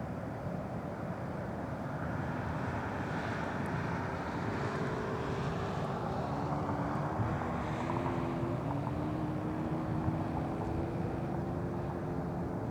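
Boeing 737-200 jet climbing away after take-off, its Pratt & Whitney JT8D turbofans heard as a steady low rumble, with faint tones that slowly fall in pitch from about halfway in.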